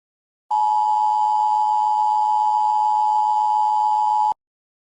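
Emergency alert attention tone: a steady, loud electronic tone of two close pitches, sounding as one harsh note. It starts abruptly about half a second in and cuts off suddenly shortly before the end.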